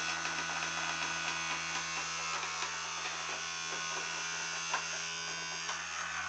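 Vibrating toothbrush motor buzzing steadily in an aluminium foil tray boat floating on bathwater, shaking the hull to push it along. There are small irregular ticks throughout, and one sharper click about four and a half seconds in.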